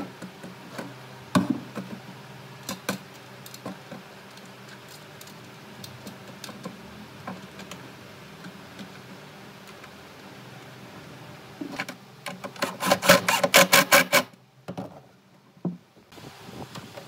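Light wooden knocks and taps as a hinged pine cabinet door is handled. About twelve seconds in, a cordless impact driver hammers for about two seconds in a rapid rattle of impacts, driving a hinge screw.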